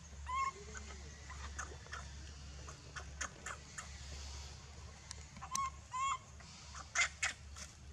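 Short, high-pitched animal calls: one soon after the start and a pair about six seconds in, each rising briefly and then held. Sharper short chirps come around three seconds and again about seven seconds in.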